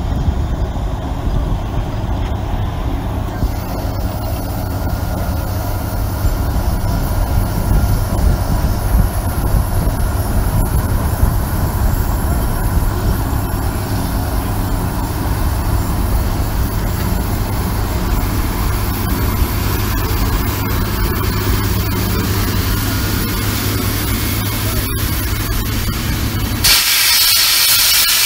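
1920 Minneapolis steam traction engine working under load as it pulls a gang plow, giving a steady low rumble. Near the end the rumble drops away suddenly and a loud hiss of steam takes over.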